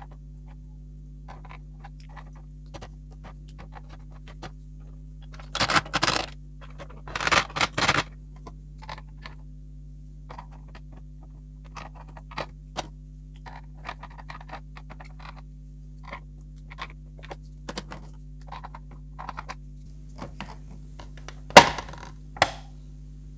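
Hands handling the plastic parts of a toy tie-dye kit: scattered light clicks and taps, two longer scraping rustles about six and seven seconds in, and a sharp knock near the end, over a steady low hum.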